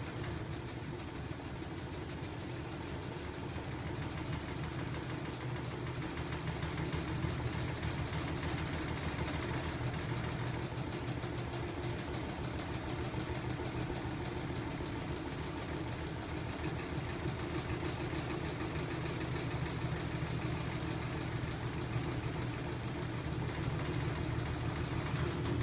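Home-built magnet-coupled crankshaft mechanism with heavy flywheels running steadily, driven by a small electric motor: a steady mechanical hum with a fast, even rattle.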